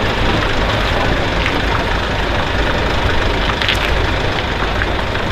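Heavy-haulage truck diesel engines running steadily with a low rumble as the multi-axle transformer convoy moves slowly.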